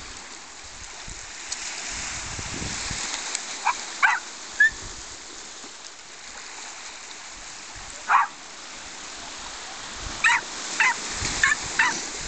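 Small Yorkshire Terrier barking in short, high yaps: a few scattered barks, then a quicker run of about five near the end. Waves wash over shingle throughout.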